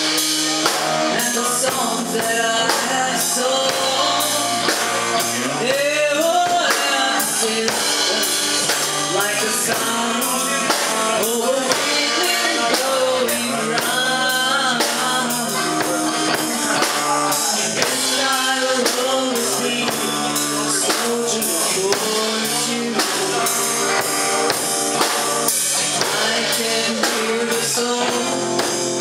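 A live rock band playing: drum kit keeping a steady beat, guitar, and a lead singer's voice through a microphone, the singing coming in a few seconds in.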